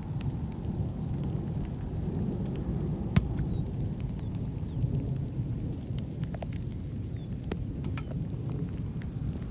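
Steady low rumble of a severe thunderstorm, with scattered sharp clicks, the loudest about three seconds in.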